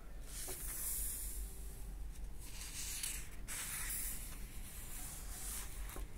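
Paper pages of an old bound book rustling as they are turned by hand, in about four bursts, over a low steady hum.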